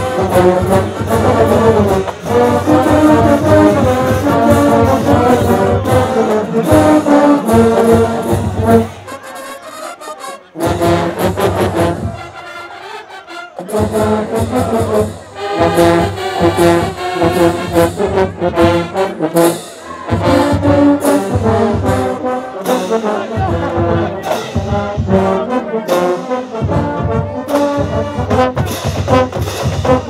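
Marching band brass section, with sousaphones and trombones, playing loud brass music. It falls away twice, briefly, about a third of the way in, then resumes.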